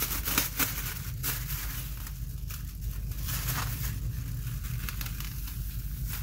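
Thin plastic masking sheet (Easy Sheet) crinkling and rustling as it is stretched and pressed down by hand over masking tape on a cylinder head, with irregular crackles that are thickest in the first second or so.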